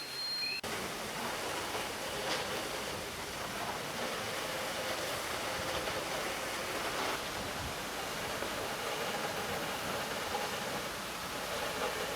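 Steady rushing hiss of water jets from fire hoses.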